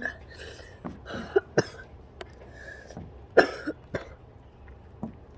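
A person coughing, a run of short harsh coughs, the loudest about three and a half seconds in. It is a cough the person blames on going out into the cold air.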